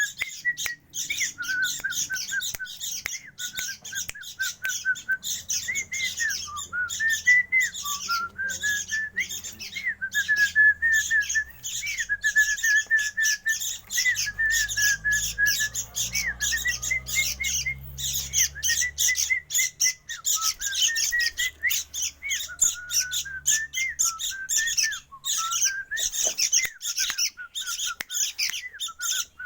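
Bird chirping in rapid, unbroken strings of high notes over a lower, wavering whistled warble that slides up and down.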